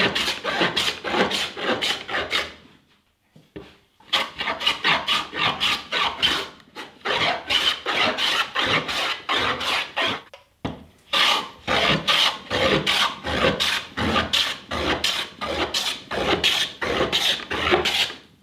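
Hand plane fitted with a toothed iron scraping across a partially air-dried Atlantic cedar board in quick, rasping strokes, about two a second. There is a pause of about a second after roughly three seconds and a brief break about ten seconds in.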